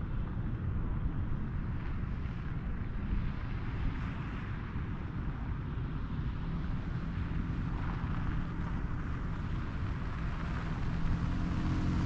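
Steady low rumble of wind buffeting the microphone of a camera flying over an open field. Music comes in near the end.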